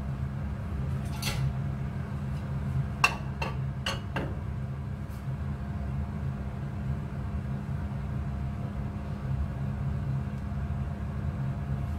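A steady low hum, like a machine or fan running, with a few light clicks and taps from handling things on the counter, one about a second in and four between three and four seconds in.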